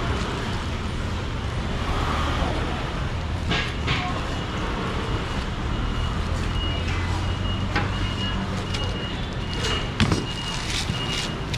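Busy market background: a steady low rumble of motor traffic with distant voices and short clicks and rustles at the stall. There is a sharp knock about ten seconds in, and a thin high beeping comes and goes in the second half.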